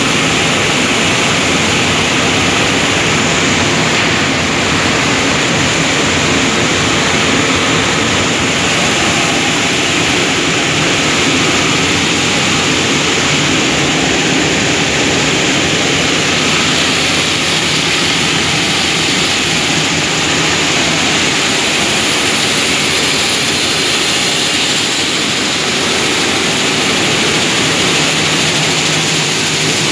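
Machinery of a pulse processing plant running: a loud, steady mechanical din that does not change.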